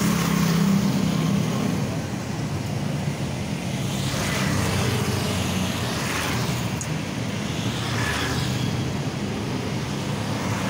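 Road traffic: a steady low engine hum, with vehicles passing by several times.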